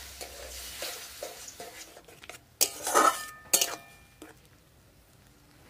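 Long steel spatula stirring and scraping a wet spice paste in a metal kadai, over a sizzle that fades after a little water has gone into the hot masala. About two and a half seconds in, the spatula clanks loudly against the pan a few times.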